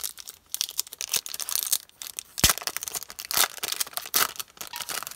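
Foil wrapper of a Yu-Gi-Oh trading card booster pack crinkling and tearing as it is ripped open by hand, with one sharp crack about halfway through.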